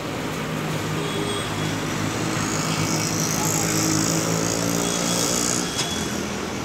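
Engine of the moving vehicle carrying the camera, running steadily under road and wind noise. The engine note rises a little midway and eases off near the end, and there is a single short click about six seconds in.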